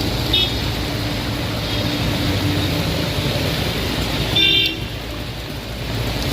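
Road traffic with a steady background noise of vehicles, and vehicle horns tooting briefly twice: once about half a second in, and louder at about four and a half seconds.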